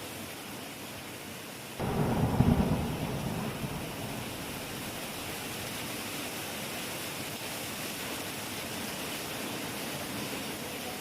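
Steady heavy rain, with a sudden deep thunder clap about two seconds in that rumbles and fades over the next couple of seconds.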